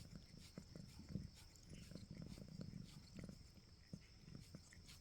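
Domestic cat purring faintly, a low rumble that swells and fades with each breath, with a few light clicks.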